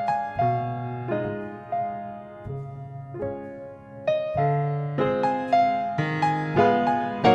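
Solo piano music, notes and chords played at a moderate pace, growing louder and busier in the second half.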